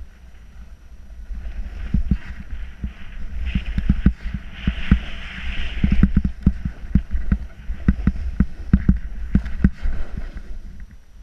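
Snowboard sliding and scraping over snow, with many sharp knocks, over a steady low rumble of wind on the microphone. The scraping builds about two seconds in, is loudest around the middle, and eases near the end.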